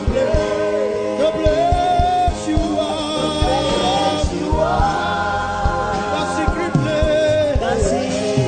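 Gospel worship music: several voices singing long held notes with vibrato over a steady drum beat.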